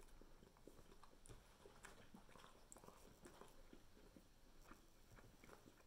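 A person chewing a hot-sauce-coated wing, heard only as faint, irregular mouth clicks.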